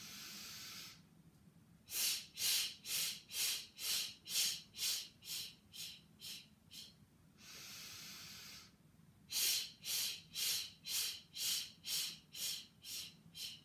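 A woman doing the yogic cleansing breath: a quick, noisy full inhale through the nose lasting about a second, then the air blown out in a rapid series of short puffs through tightly pressed lips, driven by jolts of the diaphragm, about two puffs a second and growing weaker. About seven seconds in, a second noisy inhale starts another run of puffs.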